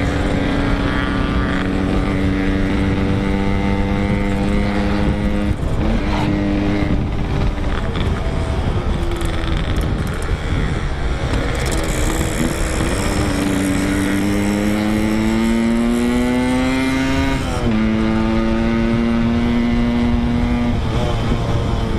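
Yamaha RX-King two-stroke single-cylinder engine with a packing-power exhaust, ridden on the road. It runs at a steady pitch, eases off about five seconds in, then makes a long climb in revs that ends in a sudden drop in pitch at a gear change near seventeen seconds, and settles steady again.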